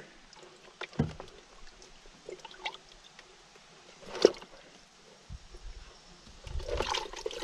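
A plastic minnow bucket being handled in an aluminium canoe: scattered light knocks and clicks against the lid and hull, the sharpest about four seconds in, with a few low thumps and a short stretch of rustling handling near the end.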